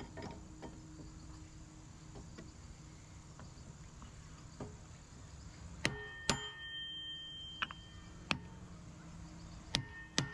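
A hammer tapping a pulley and clutch onto an engine shaft to seat it. There are a few light taps at first, then from about halfway several sharper metal strikes that ring briefly.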